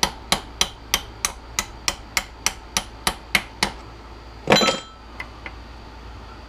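Hammer striking a steel punch about three times a second, driving a steel pin out of an aluminum brake caliper held in a vise, about a dozen blows; about four and a half seconds in comes one louder metallic clatter with ringing.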